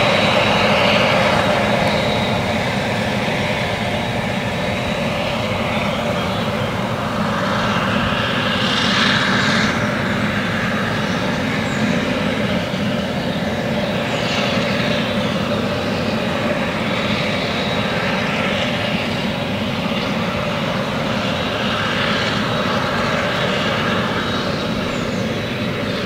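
Claas Jaguar 970 self-propelled forage harvester running steadily under load while chopping triticale for whole-crop silage, its engine drone mixed with the tractor hauling the trailer alongside. A higher rushing noise swells and fades every few seconds over the steady drone.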